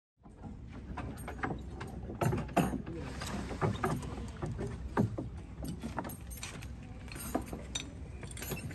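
Wooden river boat knocking and creaking against a wooden landing as it is moored, with footsteps on the landing boards. There are irregular knocks throughout.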